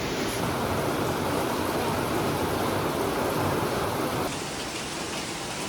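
Rain pouring down, a steady even hiss of water falling. About four seconds in, the sound becomes thinner and lighter.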